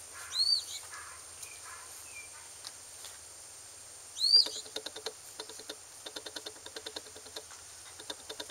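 Five-week-old Labrador puppies: two short high-pitched squeaks, one just after the start and one about four seconds in, with quick light ticking of small claws on concrete between them.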